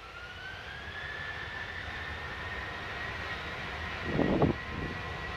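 Boeing 737-800's CFM56 jet engines spooling up for the takeoff roll: a whine that rises in pitch over the first second and a half, then holds steady as the engine noise grows louder. A short, loud pitched burst cuts in about four seconds in.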